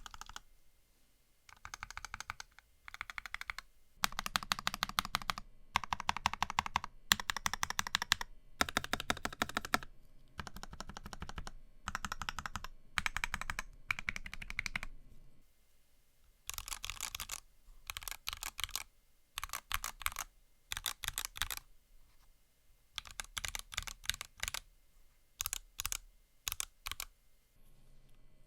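Typing on an NK65 mechanical keyboard with C3 Banana Split linear switches and PBT keycaps: rapid runs of keystrokes in bursts of a second or two, with short pauses between.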